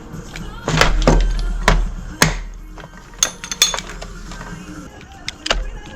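A series of sharp knocks and clatters, loudest in the first two seconds and a few more near the middle and end, over a radio playing music.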